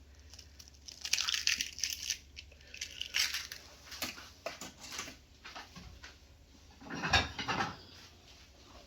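Kitchen handling sounds: scrapes, crunches and light clinks of utensils against a bowl, coming in a few irregular bursts.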